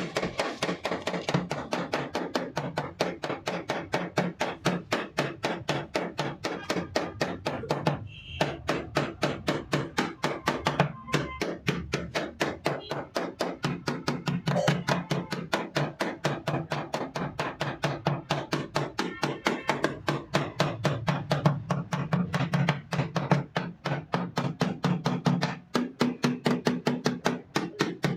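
Rapid, steady hammer taps on a car's steel side panel, about four strikes a second, knocking out a dent. There are two brief breaks in the rhythm.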